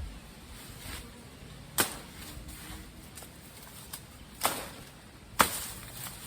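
A bolo (sundang) striking plant stems, three sharp chops over a few seconds, the last the loudest.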